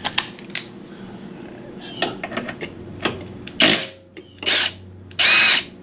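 Ratchet wrench working a 12 mm brake caliper mounting bolt loose: scattered small metallic clicks, then three short, loud bursts of rapid ratcheting in the second half.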